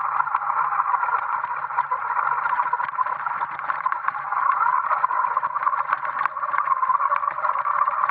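Electric BMX bike with a MY6812 brushed motor and 3D-printed gear reduction being ridden over gravel and dirt: a steady rushing, rattling ride noise from the tyres on stones and the chain drive, dense with small clicks, over a faint low hum.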